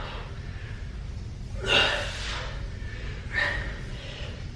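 Two forceful breaths, about a second and a half apart, from a man lifting dumbbells through a set of curls, over a steady low hum.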